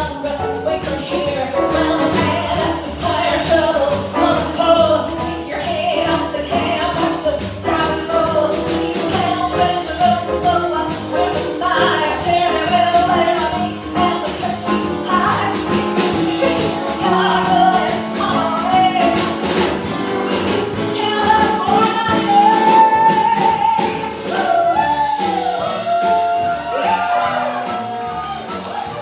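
Live stage song: a singer over instrumental accompaniment, with a long held note about three quarters of the way through.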